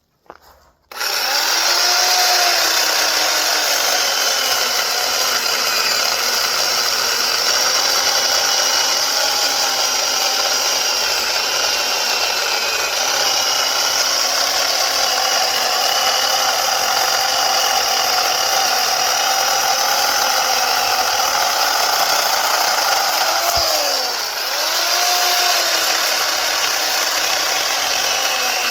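Portland 14-inch electric chainsaw switching on about a second in and running under load as it cuts through a log about 6.5 inches thick. Its whine wavers as the chain bites. Near the end the motor pitch drops briefly and climbs back.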